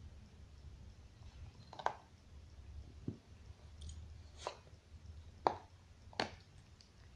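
A dog gnawing on a bone: about five sharp crunching clicks a second or so apart, over a low hum.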